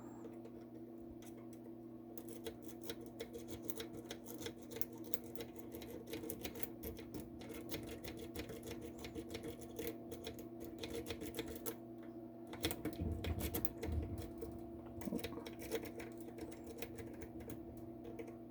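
A lock pick raked in and out of a Master Lock 532 padlock's keyway, the pick rattling the pin stacks in fast, irregular clicking. A steady low hum sits underneath.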